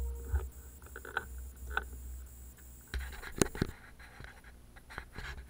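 Handling noise on a handheld camera outdoors: a low wind rumble on the microphone with scattered scratches and clicks, the loudest a pair of knocks about three and a half seconds in.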